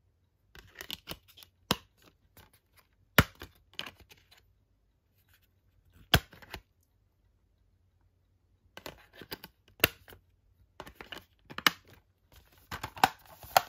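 Blu-ray discs being handled on the plastic hub trays of a metal steelbook case: a string of sharp plastic clicks and snaps as discs come off and go back onto the hubs, with rustling handling in between and a short pause about halfway through.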